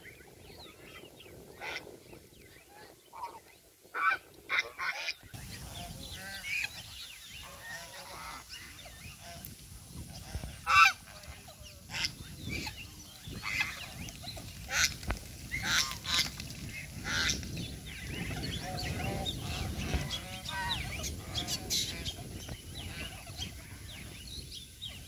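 A flock of domestic geese honking: many short calls, often overlapping, coming thicker in the second half.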